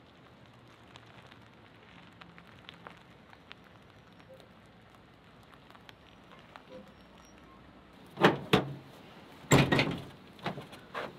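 Faint outdoor background with a few small ticks. About eight seconds in come several loud clunks and thumps from a pickup truck's open tailgate and camper shell as a person climbs down out of the bed.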